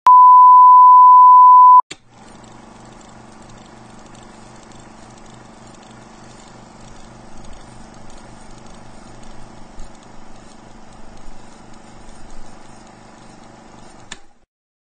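Loud 1 kHz test tone that accompanies colour bars, held steady for about two seconds and cut off. It is followed by a much quieter steady sound with a fast low pulse that stops abruptly just after 14 seconds.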